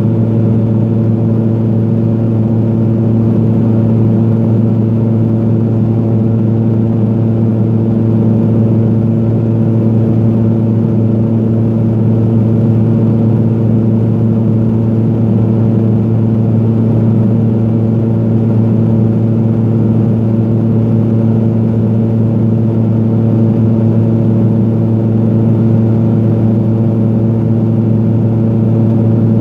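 Steady drone inside the cabin of a Pilatus PC-12 in flight, from its single turboprop engine and propeller: a loud, even low hum with several steady tones, unchanging throughout.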